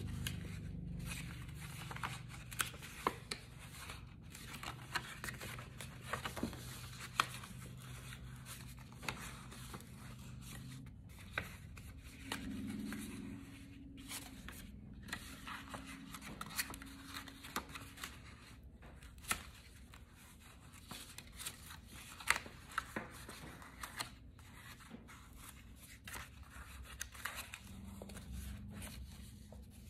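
Cardstock being folded and creased by hand along its score lines: faint, scattered paper crackles, taps and rustles.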